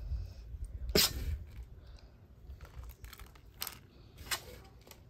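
A few short scraping and rustling noises as fried grated coconut is spooned onto fried chicken in a foil tray, the loudest about a second in, with two fainter ones later.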